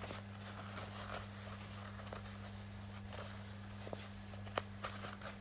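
Steady low hum under faint scattered clicks and rustles, with one sharper click about four and a half seconds in.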